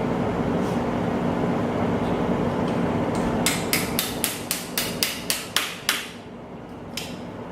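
A hammer tapping in a quick run of about ten sharp strikes, some four a second, beginning about halfway through over a steady background hum.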